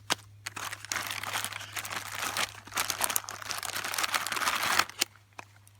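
MRE ration packaging crinkling and rustling as the pouches are handled and pulled out of the bag, stopping about five seconds in.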